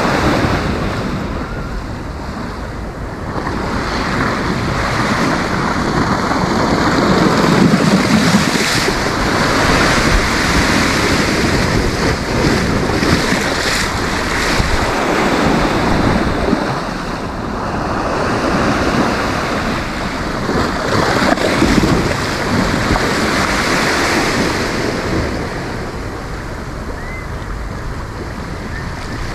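Sea waves breaking and washing onto the shore: a continuous surf noise that swells and eases every few seconds, with wind buffeting the microphone.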